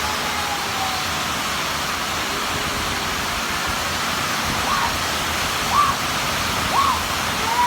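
Heavy rain falling steadily, with four short, high curved calls, voice-like, in the last three seconds.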